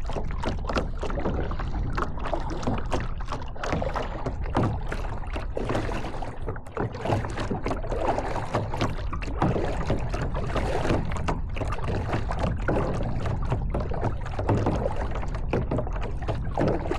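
Kayak paddling: the paddle blades dip and splash in the water irregularly over a steady low rumble.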